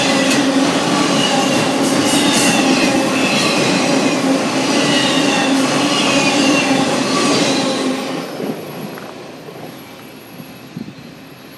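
Autorack freight cars rolling past at speed: steel wheels on rail, with a wavering high squeal from the wheels and some clicking over the rail joints. The noise fades away about eight seconds in as the end of the train passes.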